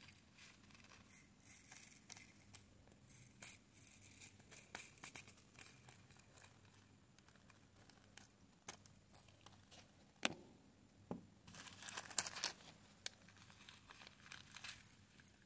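Faint crinkling and rustling of thin plastic zip-lock bags of resin diamond-painting drills being opened and handled, with scattered small clicks. A denser burst of crinkling comes about twelve seconds in.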